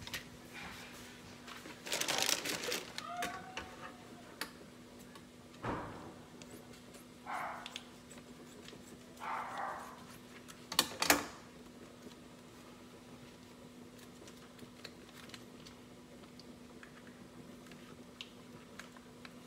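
Crackling and rustling of paper and plastic wrap as a raw sirloin steak is unwrapped, a soft thud as it goes down on a plastic cutting board, and a sharp clatter of a spoon against a small plastic cup about eleven seconds in, the loudest sound. Two short whine-like sounds come between the thud and the clatter, and a steady low hum runs underneath.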